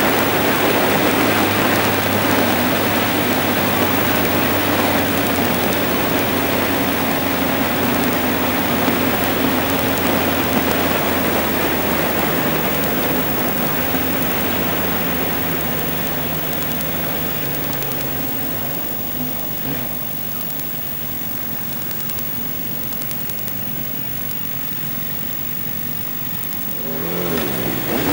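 Motorcycle engine and wind noise at cruising speed, heard from the rider's own bike. The engine eases off and drops in pitch as the bike slows through the middle. Near the end an engine revs up, rising in pitch, as the bikes pull away from a junction.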